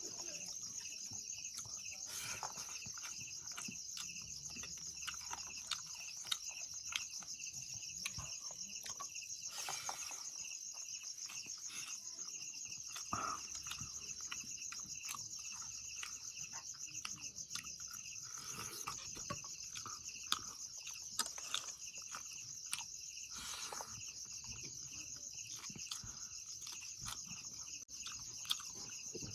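Steady, high-pitched chorus of insects with a fast pulsing trill, and scattered faint clicks and knocks.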